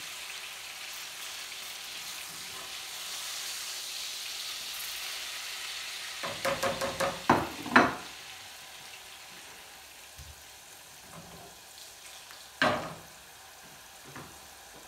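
Walleye fillets frying in butter in a pan, a steady sizzle. Around six to eight seconds in, a run of short spatula scrapes and clicks against the pan come as the fillets are lifted out, and then the sizzle quietens. One sharp click comes near the end.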